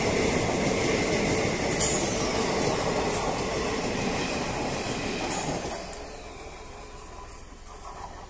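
MEMU electric passenger train running, heard from aboard: a steady rush and rumble of wheels on the track with a couple of brief high squeaks that slide down in pitch. The noise drops noticeably about two-thirds of the way through.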